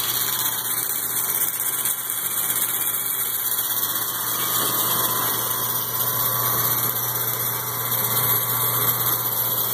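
The 1 hp Harbor Freight electric motor of a homemade belt grinder running steadily, turning its V-belt drive and pulleys with nothing being ground. It gives a constant low hum with an even hiss above it.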